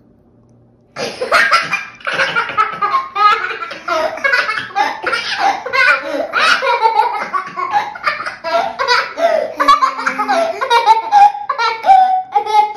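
Hearty, sustained laughter in quick repeated bursts, starting about a second in after a quiet start.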